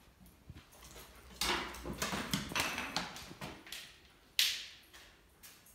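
Rustling, scraping and light knocks of objects being handled on a cluttered shelf of old tins and a metal cup. The loudest is a single sharp knock about four and a half seconds in, which dies away quickly.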